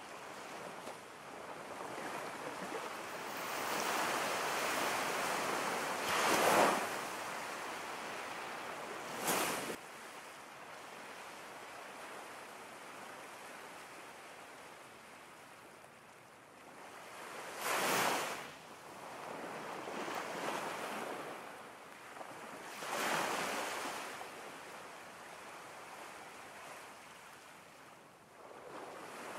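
Ocean waves washing in and breaking, rising and falling in turn, with several louder crashes among the swells.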